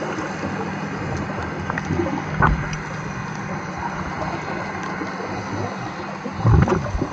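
Underwater ambience of scuba divers breathing through regulators: a steady hiss with faint crackles, and a louder bubbling burst of exhaled air about six and a half seconds in.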